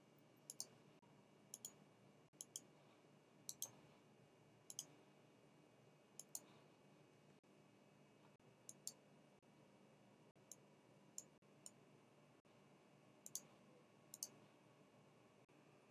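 Faint computer mouse button clicks, mostly in quick pairs, about a dozen times at irregular intervals.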